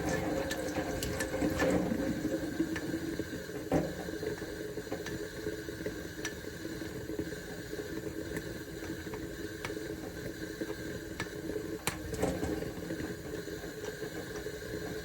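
Steady running water, like a tap running into a sink, with scattered light clicks and scrapes as an adhesive sticker is worked off a knife blade.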